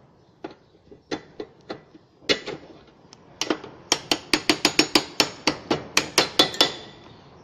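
Hammer tapping on metal: a few scattered knocks, then from about halfway a quick run of blows, about four or five a second, that stops shortly before the end.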